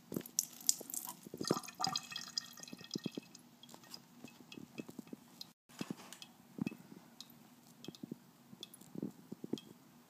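A thin stream of water trickling and splashing from a bathroom faucet for the first few seconds, then stopping. Scattered drips and small ticks follow.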